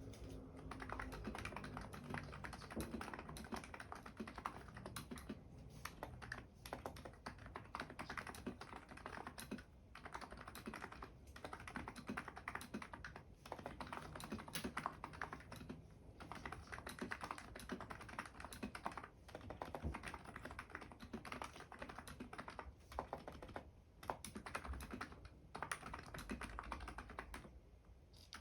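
Continuous typing on an ABKO KN01 electro-capacitive keyboard with fully lubed switches and SA-profile keycaps: a dense run of key strokes broken by a few short pauses.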